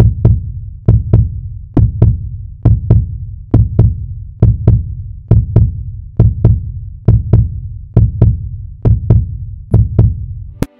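Heartbeat sound effect: pairs of low thumps (lub-dub), a little under one beat a second. It ends with a short click near the end.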